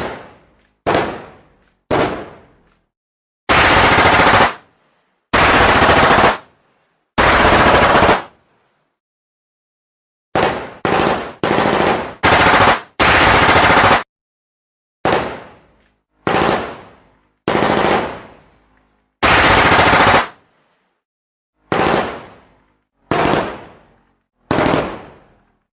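Gunfire sound effects: single gunshots, each fading out, alternating with short automatic bursts of about a second each. There are three bursts near the start, a quick run of shots and two more bursts around the middle after a two-second silence, and then more single shots with one further burst.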